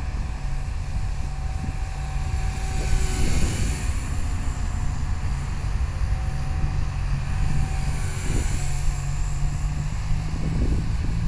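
Blade 180 CFX micro RC helicopter flying overhead, its electric motor and rotor giving a thin whine that comes and goes over a steady low rumble of wind on the microphone.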